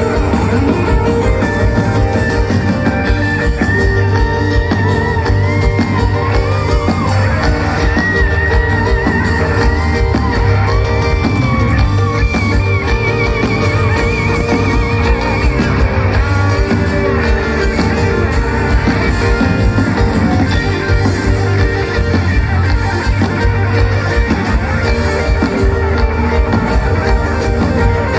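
Live pop-rock band playing an instrumental passage with no singing: a lead guitar line with bends and vibrato over steady bass and drums.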